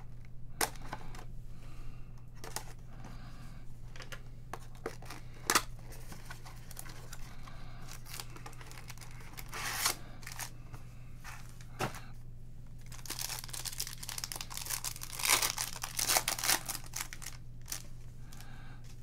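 A box of Bowman's Best baseball cards and its card packs being torn open by hand: scattered sharp rips and clicks, then a few seconds of dense crinkling and tearing about two-thirds of the way through. A low steady hum runs underneath.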